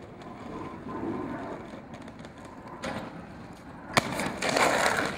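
Aggressive inline skate wheels rolling on asphalt, then a sharp clack about four seconds in as a rollerblader meets a metal driveway barrier arm. About a second of loud scraping follows.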